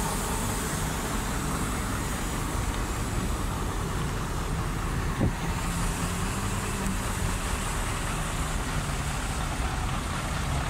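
Heavy diesel truck engine idling steadily, with a single short knock about five seconds in.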